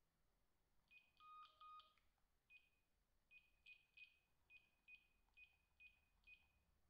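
Samsung SP-R5210pp cordless phone handset beeping at its key presses as its menu is stepped through. Two short two-pitch beeps come about a second in, then about nine short, high beeps of one pitch, roughly two a second, each with a faint button click.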